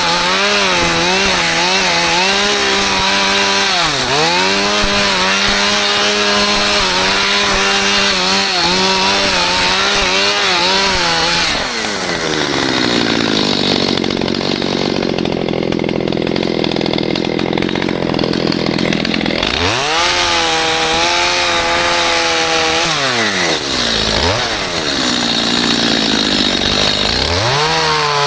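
Stihl MS211 two-stroke chainsaw held at high revs in a cut, its pitch wavering under load. About twelve seconds in it drops to idle. Near the end it is revved up and let down several times.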